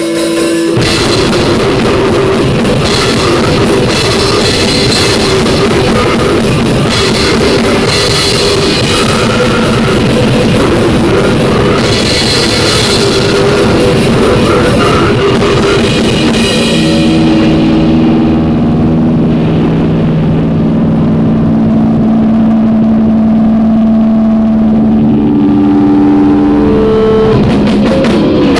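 Loud harsh noise music: a dense, distorted wall of sound with drum-like crashes. About sixteen seconds in, the top end falls away, leaving a few held low drones that step to new pitches near the end.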